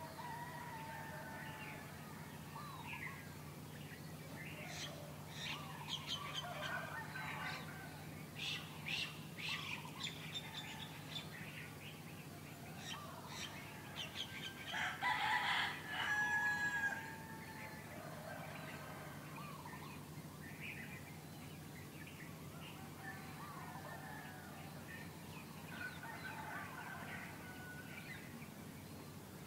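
Small birds chirping and calling in short phrases, with a rooster crowing about halfway through, the loudest sound. A faint, steady low hum runs underneath.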